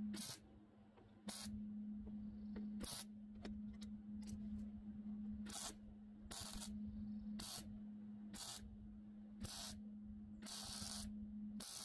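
Wire-feed welder laying short tack welds on thin steel: about ten brief crackling bursts, each under a second, with a longer one near the end. The welds fix a scrap-metal reinforcing plate over a cracked mower deck. A steady low hum runs underneath.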